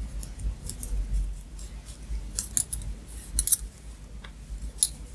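Knitting on wooden double-pointed needles: irregular light clicks of the needle tips tapping against each other as stitches are worked, over soft handling noise of the yarn and hands.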